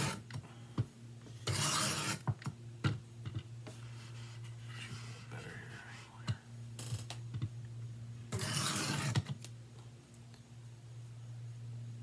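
Steel knife blade drawn along a Work Sharp diamond sharpening plate: two long scraping strokes, about one and a half seconds in and again near nine seconds, with fainter scraping and light clicks between. A steady low hum runs underneath.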